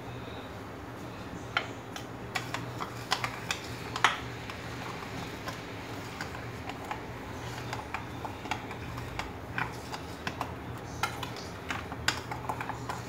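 A mixing spoon clicking and scraping against the bowl in irregular taps as flour is stirred into a butter, egg and sugar batter for biscuit dough, over a steady low hum.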